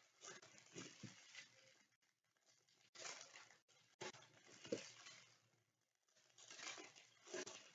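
Foil baseball card pack wrapper being torn open and crinkled by hand: faint, irregular crackling in several short bursts.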